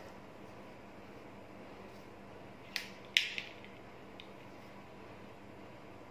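Two short, sharp taps about half a second apart, the second louder and ringing briefly, over a faint steady hum.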